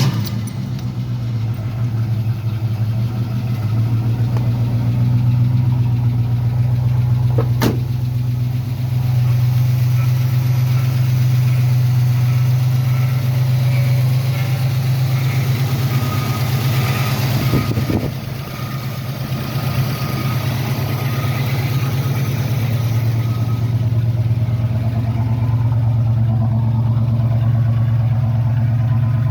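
1981 Chevrolet Malibu's carbureted engine running steadily just after a cold start. A single sharp click about eight seconds in; the engine dips briefly about eighteen seconds in, then steadies again.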